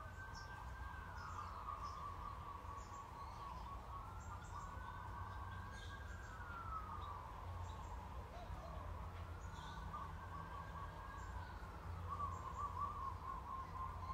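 Birds chirping in short high calls, over a mid-pitched wail that slowly rises and falls three times, with a steady low background rumble.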